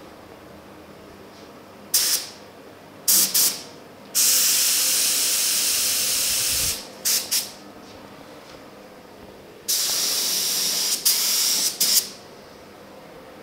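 Gravity-feed spray gun spraying reduced polyester primer, its compressed air hissing with each trigger pull: short blasts about two and three seconds in, a long pass of over two seconds, two more short blasts, then another long pass broken by quick releases near the end.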